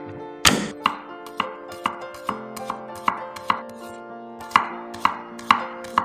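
Chef's knife chopping shallots on a wooden cutting board: a run of sharp knocks about two a second, the loudest about half a second in.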